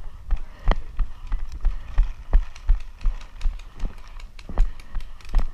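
Running footsteps on a dirt path, heard from the runner's own camera as a steady jolting thump about three strides a second, with sharp knocks and rattles of carried gear on each step.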